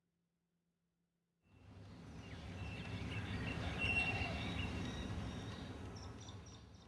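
Outdoor background noise: a rushing sound that starts abruptly about a second and a half in, swells and then fades, with faint high chirps over it.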